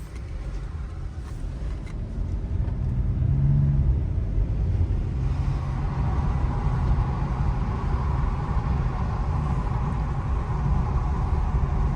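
Car engine and road rumble as the car drives, building over the first four seconds as it speeds up, then steady.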